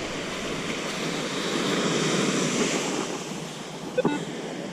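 Ocean surf washing in on the beach, swelling to its loudest about halfway and then receding, with wind on the microphone. A short metal detector beep near the end.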